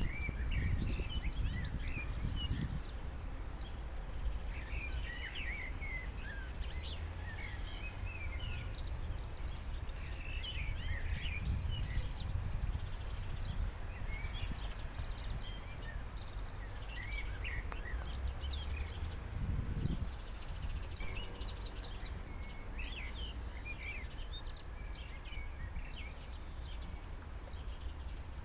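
Several small birds chirping and singing in quick, overlapping phrases throughout, over a low rumble that swells in the first couple of seconds and again briefly near the twenty-second mark.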